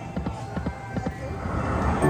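Video slot machine spinning its reels: a quick run of sharp clicks through the first second or so, with faint electronic tones behind.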